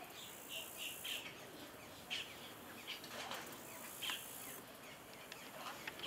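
Birds chirping outdoors: about seven short, scattered chirps, with a steady high hiss behind them that cuts off suddenly a little over four and a half seconds in.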